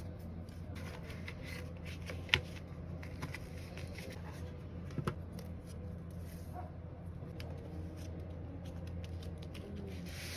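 Hands working on a mechanical keyboard kit: scattered light clicks and rustling, with one sharp click about two seconds in and a couple more near five seconds, over a steady low hum.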